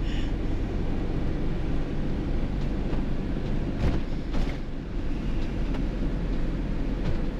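Motorhome driving along, a steady engine and road rumble heard inside the cab, with a couple of brief knocks about four seconds in.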